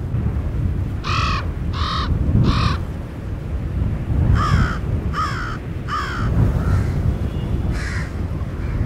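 A crow cawing: two runs of three harsh calls, each call about two-thirds of a second after the last, then a fainter call near the end, over a steady low rumble.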